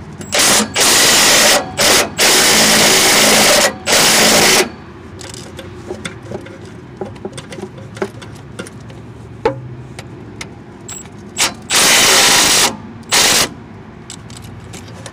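Cordless impact wrench with a 16 mm socket hammering out the bolts that hold the steering gearbox to the chassis: several loud bursts in the first four and a half seconds, two more near the end, with light metal clicks between.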